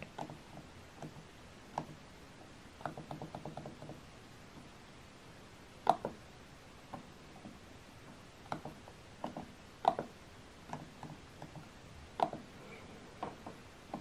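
Plastic control-panel buttons on an Epson WorkForce Pro WF-M4119DW printer clicking as they are pressed, one at a time, while characters are picked on its on-screen keyboard. There is a quick run of about eight presses near three seconds in, and sharper single clicks about six, ten and twelve seconds in.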